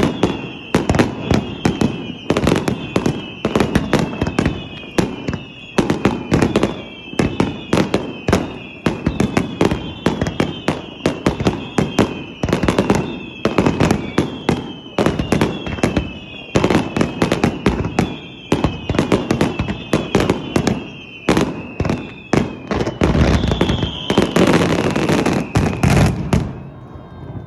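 Fireworks going off in rapid succession, several sharp booms and cracks a second, threaded with repeated short falling whistles. About 23 seconds in they build to a dense, continuous crackling barrage, which stops abruptly shortly before the end.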